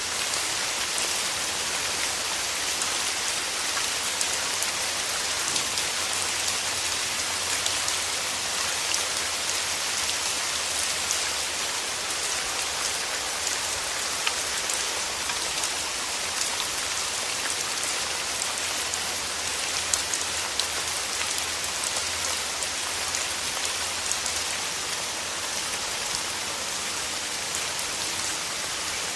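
Steady rain falling on a surface: a dense, even patter of many small drops.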